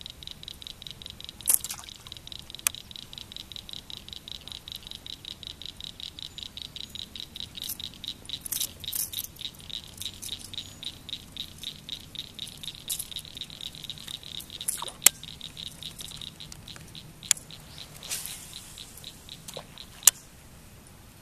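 Fishing reel being cranked steadily to retrieve a crankbait: a fast, even clicking that stops about sixteen seconds in. A few sharp knocks are scattered through it.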